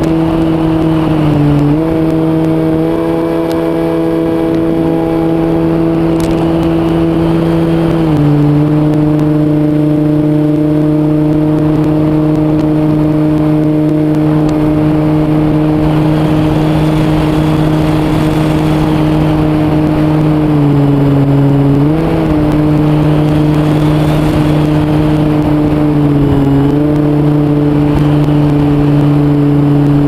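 Multiplex EasyStar II's electric motor and pusher propeller running in flight, a steady buzzing hum. Its pitch drops a little about a quarter of the way in and dips briefly a few more times later as the throttle is eased.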